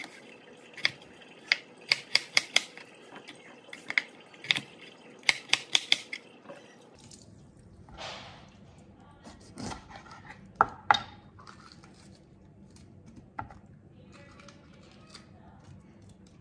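Kitchen knife chopping on a plastic cutting board: a quick run of sharp knocks as the blade goes through potato and strikes the board, then a few scattered slicing sounds and knocks from about seven seconds in as a bell pepper is cut.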